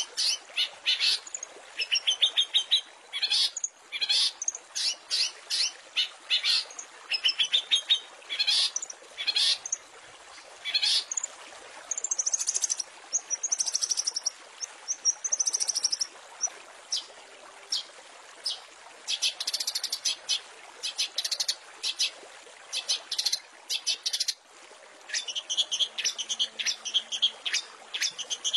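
Long-tailed shrike (cendet) singing a fast, harsh song of rapidly repeated notes and short trills, with a few longer whistled phrases mixed in. There is a brief break about 24 seconds in.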